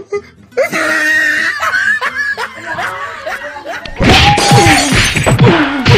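A person's loud wordless vocalizing, laughing or crying out with wavering pitch, that turns louder and harsher, like shrieking, about four seconds in.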